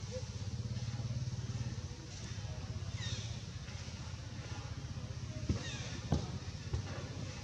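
A small engine running steadily with a low, pulsing rumble. Short bird chirps sound about three seconds in, and a few sharp clicks come near the end.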